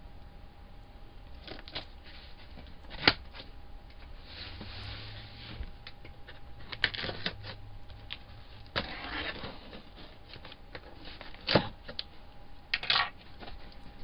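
A utility knife cutting the packing tape on a cardboard shipping box, with scattered sharp clicks and short scraping and tearing noises of tape and cardboard. Near the end the box flaps are pulled open, with a few more clicks.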